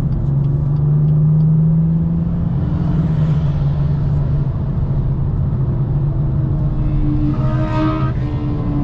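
BMW M2 engine heard from inside the car, pulling steadily at speed with a low note that swells briefly about a second in. A higher-pitched engine note joins near the end.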